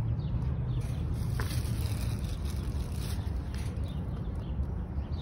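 Wind buffeting the phone's microphone, a steady, uneven low rumble, with a faint click about one and a half seconds in.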